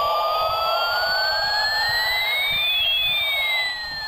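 Electronic siren-like tone sweeping slowly upward for about three seconds and then turning back down, while a second, higher tone glides down and back up against it, over a steady hiss.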